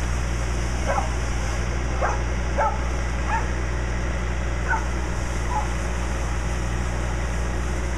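Fire engine's engine running steadily with a low hum, over which come about six short, high yelping calls spread through the first six seconds.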